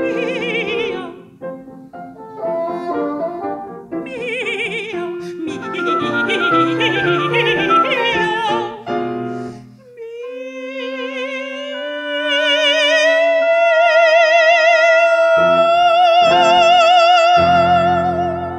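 Operatic mezzo-soprano singing with a chamber ensemble of piano, oboe and bassoon. After a short break about halfway through, the voice slides up into a long high note with wide vibrato, held while the accompaniment comes back in with closing chords near the end.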